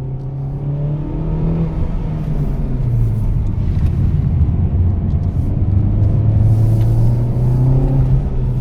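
Honda Civic Type R FK8's 2.0-litre turbocharged four-cylinder engine running under way. Its note drops sharply about three seconds in, as at a gear change, then climbs steadily with the revs and falls again near the end.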